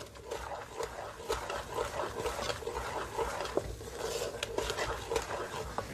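Wooden spoon stirring a thick chocolate fudge mixture in an enameled pot, with repeated scraping strokes against the pot's sides and bottom and a few light knocks. The chocolate chips are being stirred into the hot sugar syrup to melt.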